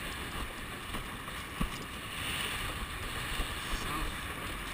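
Windsurf board sailing over choppy water: a steady rush of wind on the microphone and water under the board, with a small knock about one and a half seconds in.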